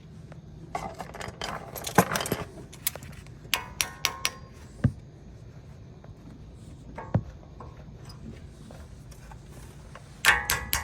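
Metal brake pad hardware clicking and clinking while it is fitted into the caliper, with a few small parts ringing briefly. The clinks come in clusters, with a quieter stretch in the middle and a burst of ringing clinks near the end.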